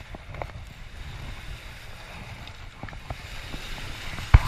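Turbulent river water below a dam washing onto a rocky shore, with wind on the microphone and a few faint clicks of tackle being handled. A sharp knock near the end.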